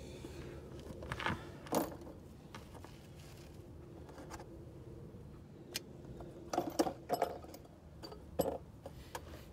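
Scattered light metallic clinks and knocks of hand tools being handled during work on a car's front suspension, with a small cluster of them about two-thirds of the way through.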